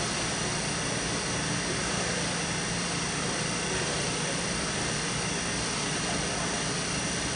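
Wiped-film short path distillation system running: a steady, even rushing noise with a low hum and a thin high whine.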